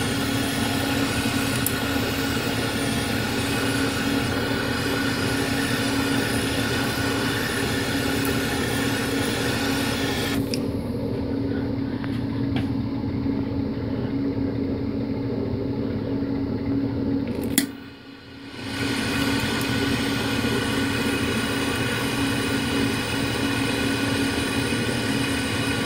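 Butane torch flame running with a steady hiss and a low hum. About two-thirds of the way through it drops away for about a second, then comes back.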